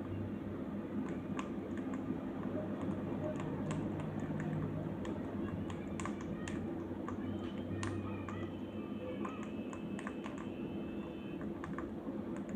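Small pet birds' beaks clicking and tapping: rapid, irregular little taps over a steady low hum, with a thin high tone held for a couple of seconds past the middle.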